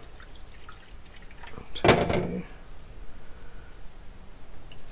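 Cold water running from a kitchen tap into a metal measuring cup, with a short louder burst of splashing about two seconds in.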